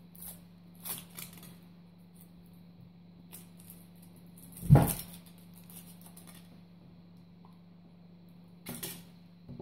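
Thin foil wrapper of a Kinder Surprise chocolate egg being peeled off and crinkled in short rustles. There is one loud knock about halfway through and another burst of crinkling near the end.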